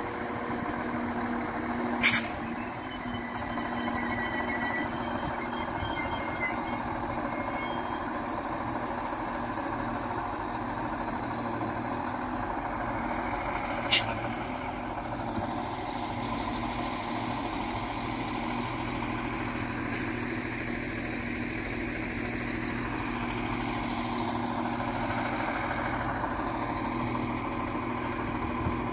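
Irish Rail 22000 Class diesel multiple unit's underfloor diesel engines running steadily as the train moves slowly past. Two sharp clanks, about 2 seconds in and again about 14 seconds in.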